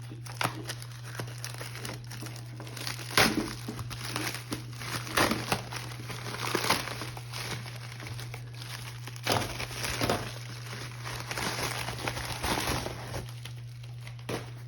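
A package being cut open and unwrapped by hand: irregular crinkling and rustling of wrapping, with scattered sharp clicks and scrapes, over a steady low hum.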